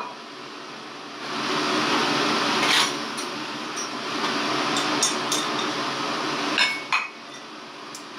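A black clay pot clinking and knocking as it is lifted off the gas burner and set down on a wooden chopping board, over a steady hiss that stops about a second before the end.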